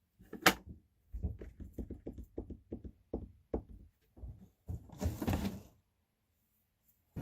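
Handling of tools on a workbench: one sharp clack, then a quick run of about ten hard knocks and taps, then a short rattling scrape near the middle.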